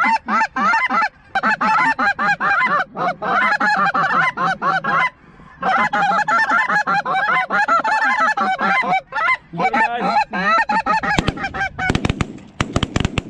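Rapid, continuous goose honking and calling, the hunters' goose calls mixed with the flock working the decoys. In the last two seconds a volley of several shotgun shots cuts through it.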